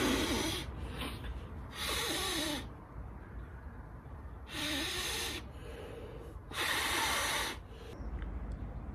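A man blowing hard by mouth into the valve of a Berghaus Peak Pro insulated air mat to inflate it: four long rushing breaths, each about a second, roughly two seconds apart.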